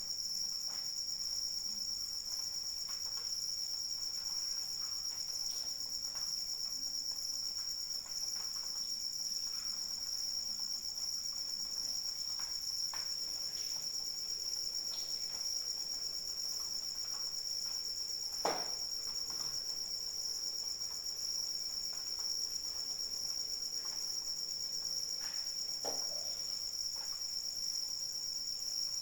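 Crickets chirping in a continuous high, steady trill over a faint patter of light rain with scattered drops, one sharper tap about two-thirds of the way through.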